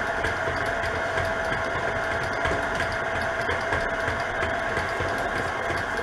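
KitchenAid Classic stand mixer running steadily, its motor giving an even hum as it mixes thick brownie batter in a steel bowl.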